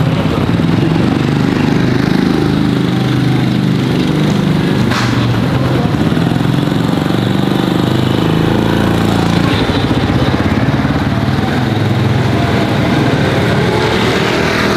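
Small motor-scooter engine running steadily close by, a low even drone with no clear revving.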